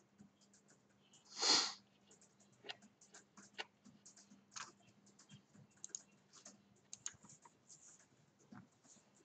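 Irregular light clicks of a computer keyboard and mouse being used, with one brief, louder rush of noise about a second and a half in, over a faint steady hum.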